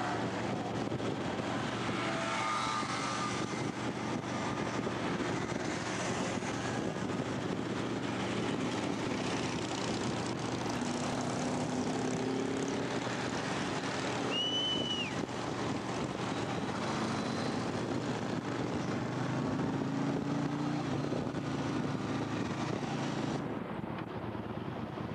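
Motorcycle engines running steadily on the move, with wind noise and engine pitch drifting slightly. A short high beep sounds about halfway through.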